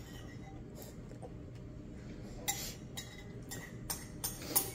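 A handful of faint clicks and clinks of small hard objects being handled, over low room noise, mostly in the second half.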